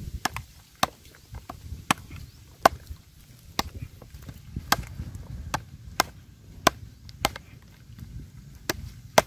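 A knife blade chopping into a hard lump of termite-mound earth set on a wooden stump: about a dozen sharp, separate blows, unevenly spaced at roughly one a second.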